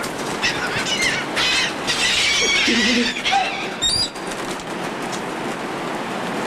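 A flock of gulls scrambling for thrown food: a burst of short, overlapping squawking calls in the first three seconds, then only scattered calls, with wings flapping over a steady rushing hiss.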